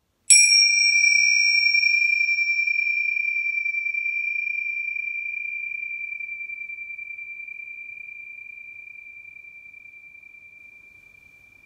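Tingsha cymbals struck together once, ringing a single high, clear tone that slowly fades away with a slight pulsing. The higher overtones die out within the first few seconds.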